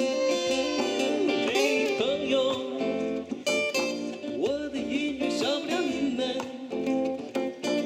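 A man singing into a microphone while playing an acoustic guitar.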